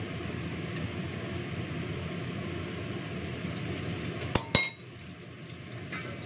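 Two sharp metallic clinks of kitchenware in quick succession about four and a half seconds in, ringing briefly, over a steady kitchen hiss that drops slightly after them.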